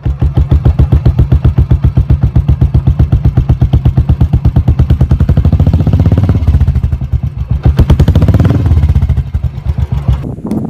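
Motorcycle engine running with an even, low, pulsing beat of roughly eight or nine pulses a second. The beat quickens a little past the middle as the bike is ridden.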